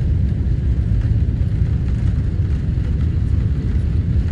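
Inside a jet airliner's cabin during the takeoff roll: a steady, loud, low rumble from the engines at takeoff power and the wheels running down the runway.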